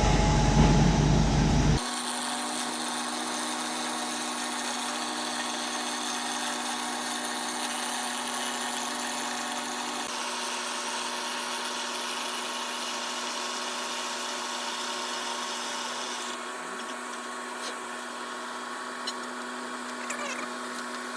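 Water-well drilling rig drilling into bedrock: a steady machine whine with a strong held hum, after a louder low rumble that cuts off abruptly about two seconds in.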